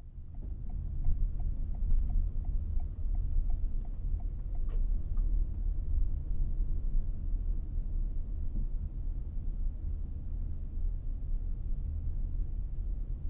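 Car driving slowly, heard from inside the cabin: a steady low rumble of engine and tyres. For the first four seconds or so the turn-signal indicator ticks lightly and evenly, about three ticks a second, and a single sharper click follows.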